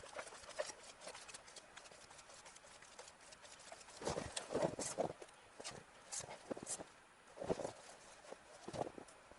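Footsteps crunching on snow, a run of steps about every half second in the second half.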